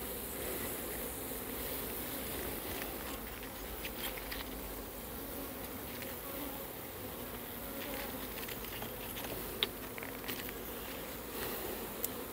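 A colony of honeybees buzzing around an open hive, a steady hum, with a few light clicks from handling the hive.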